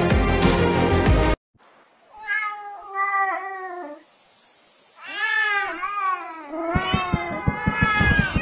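Background music that cuts off suddenly, then cats meowing: two short falling meows, a pair of longer arching meows, then several overlapping meows over a quick run of low thumps near the end.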